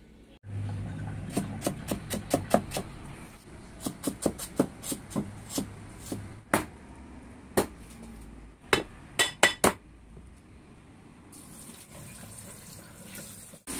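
Kitchen knife chopping ginger on a chopping board: irregular runs of sharp knocks, the chopping trailing off after about ten seconds.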